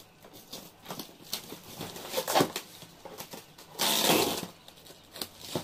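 Plastic wrap and a cardboard parcel being handled and cut open with scissors: a string of crinkling, crackling rustles, with a louder burst of cutting and tearing about four seconds in.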